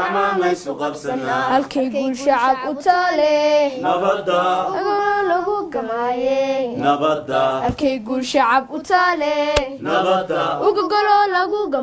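A female voice singing unaccompanied, in long held notes that waver in pitch.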